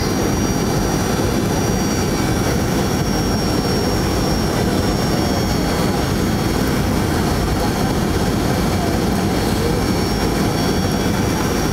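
Steady noise of a jetliner's engines and rushing air heard inside the cabin during the descent to land, with a faint steady high whine over it.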